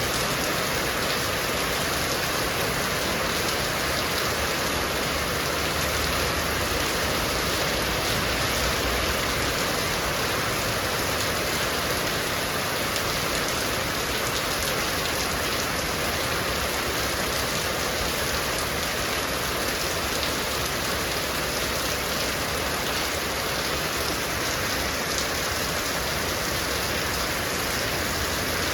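Heavy rain falling steadily, a dense unbroken patter of drops.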